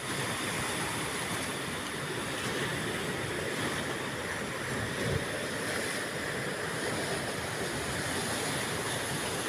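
Sea surf washing and breaking over rocks, a steady rush of water with a slightly louder wave about five seconds in.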